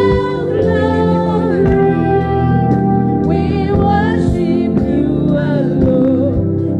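Live gospel worship song: singers led by a woman on a handheld microphone, over a band of keyboard, bass guitar and drums.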